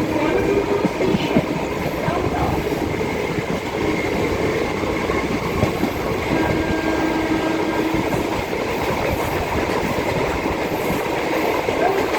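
Kolkata EMU suburban electric train running at speed: a steady, loud noise of wheels on track with irregular rattling. A faint steady tone comes in briefly a little past the middle.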